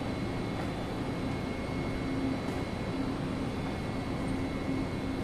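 Steady hum and hiss of the aquarium hall's background noise, even throughout with no distinct event.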